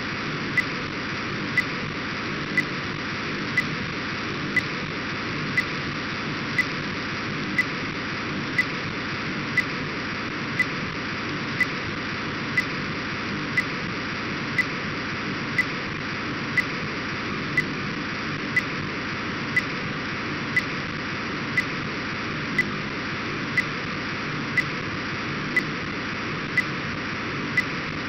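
Steady hiss of an Orbcomm satellite downlink as demodulated audio from an RTL-SDR receiver, while the decoder pulls packets from it, with a short tick about once a second.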